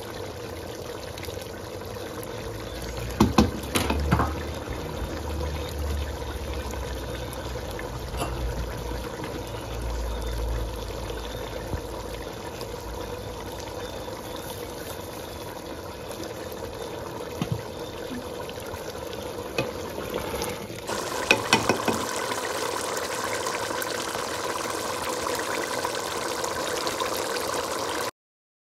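Minced-meat and potato curry bubbling at a steady simmer in a steel pot. There are a few sharp taps of utensils against the pot, about three to four seconds in and again about twenty-one seconds in.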